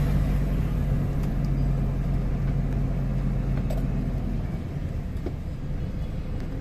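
Car engine and road noise heard from inside the cabin while driving slowly through town: a steady low hum that drops away about four seconds in, then cuts off abruptly.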